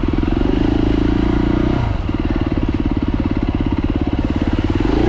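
Beta 390RR single-cylinder four-stroke enduro engine running at steady revs, then easing off to a low, even putter about two seconds in. It picks up revs again near the end.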